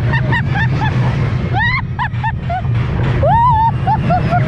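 Kiddie roller coaster train running on its steel track with a steady low rumble, while riders give short high-pitched cries and squeals over it.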